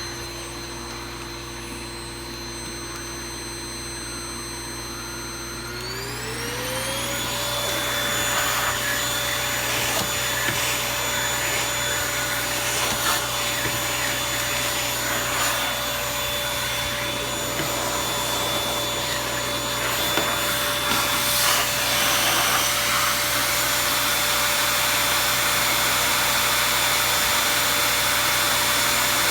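Toshiba VC-PB9 vacuum cleaner running with a steady motor whine. About six seconds in the motor speeds up, its pitch rising and the sound getting louder. It then runs steadily at the higher speed with scratchy rubbing noise over the whine.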